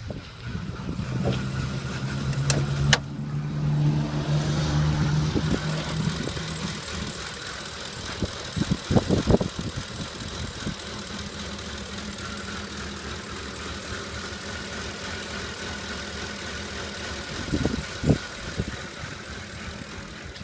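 2010 Ford F-150's 5.4-litre V8 running at idle, louder for the first few seconds, then settling to a steady idle with a few low thumps. The idle is rough, which the owner puts down to a canister purge valve that is not working properly.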